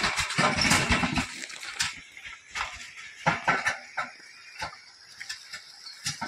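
Bullocks' hooves splashing irregularly as the pair hauls a cart through shallow water. A continuous rumbling noise fills the first second or so before the splashes take over.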